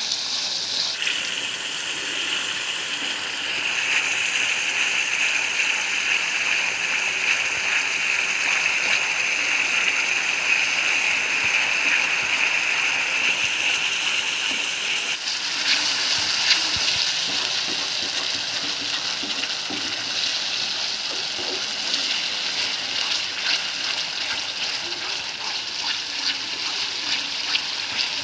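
Spice masala paste sizzling and spluttering in hot oil in a pan while it is stirred with a wooden spatula, a steady hiss as the masala is fried down.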